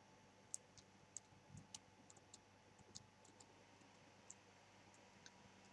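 Faint, irregular clicks of computer keys being pressed, about a dozen short ticks against near-silent room tone.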